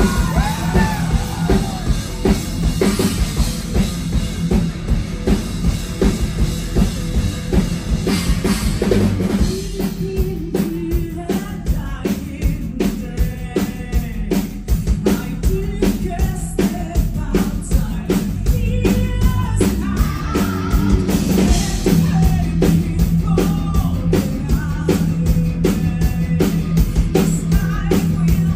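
Live metal band playing with drum kit and guitars, a female and a male singer singing over it. The drums settle into a fast, steady beat about ten seconds in.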